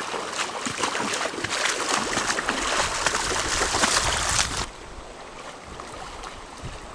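Rushing river water with close splashing and crackling in the shallows. About two-thirds of the way through it drops suddenly to a quieter, steady rush with a low wind rumble on the microphone.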